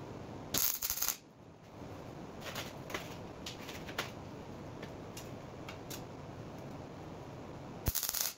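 Wire-feed (MIG) welder arc crackling in two short tack welds about half a second in. Then come light clicks of steel pieces being set in place, and the arc strikes again just before the end, tacking steel engine-mount ears to a plate.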